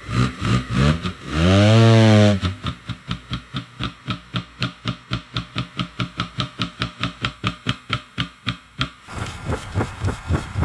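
Loaded hand truck rolling: a low rumble, a pitched squeal that rises and falls for about a second, then a long run of even clicks about five a second, and the rumble returns near the end.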